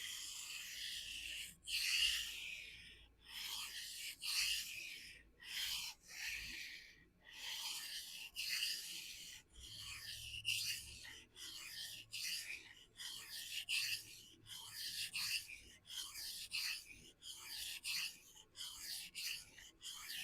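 A steel knife blade drawn in repeated freehand strokes across a coarse 400-grit vitrified diamond sharpening stone: a hissing scrape about once a second, with short pauses between strokes. The blade is being ground at a steeper angle on one side to even out an asymmetric edge bevel.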